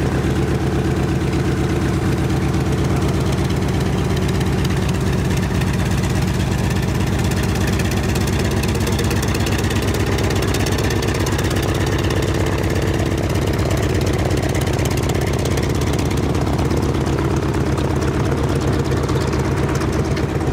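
Radial piston engine of a WWII-era single-engine propeller warbird, running steadily at low taxi power with a fast, even pulse.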